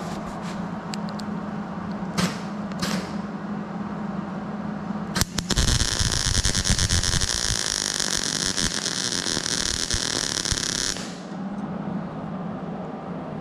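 MIG welder arc crackling steadily for about five and a half seconds as a spot weld joins a new 18-gauge steel patch to a car body's inner structure, then cutting off sharply. A steady low hum comes before it.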